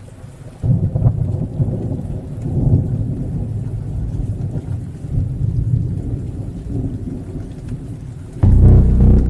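Logo-reveal sound effect: a low, noisy rumble that comes in sharply about half a second in and carries on unevenly, then a sudden louder low hit about eight and a half seconds in.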